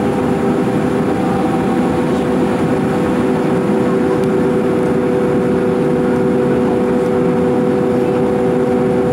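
Airbus A310 cabin noise heard from a seat over the wing on the approach: a steady drone of jet engines and airflow, with a few steady hums running under it.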